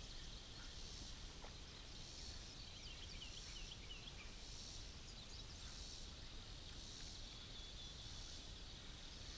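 Outdoor summer ambience: insects buzzing in a high, steady drone that swells and fades about once a second, with a short run of bird chirps about three seconds in.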